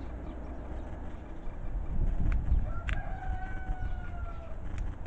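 One long, drawn-out animal call about three seconds in, a single held note with an overtone that falls slightly at its end. Under it runs a steady low rumble, loudest around two seconds in, with a few sharp clicks.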